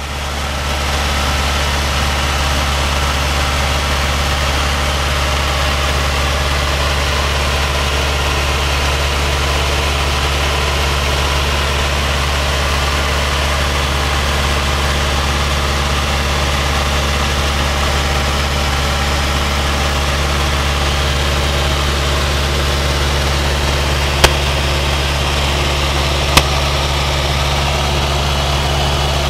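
Luscombe light airplane's piston engine and propeller droning steadily in cruise flight, heard from inside the cabin with a hiss of air noise over it. Two sharp clicks about two seconds apart come near the end.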